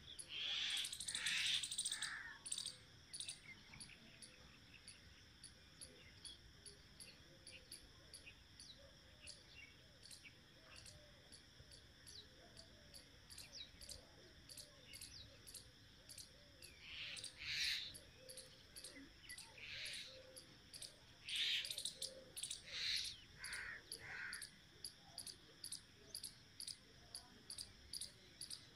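Crickets chirping in a steady, fast rhythm, faint throughout. A few louder bird calls come near the start and again about two-thirds of the way through.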